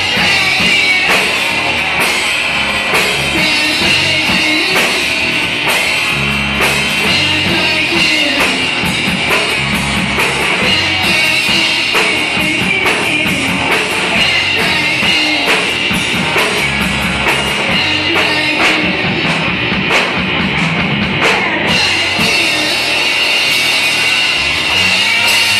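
Live rock band playing: a drum kit keeps a steady beat of drum and cymbal hits under electric guitar.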